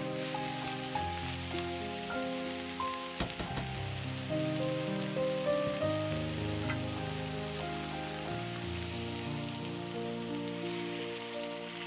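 Slow instrumental background music with held notes, over a steady sizzling hiss from squash cubes and onion cooking in a pot. A brief knock sounds about three seconds in.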